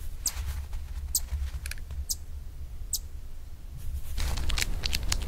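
Chipmunk chip calls: short, sharp, high-pitched chips about once a second, then a quicker run of chips and clicks near the end, over a steady low hum.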